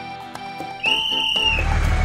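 Cartoon background music, with a short high whistle about a second in. Near the middle, a cartoon toy-tractor engine effect starts up: a low engine running with a rapid, even pulse.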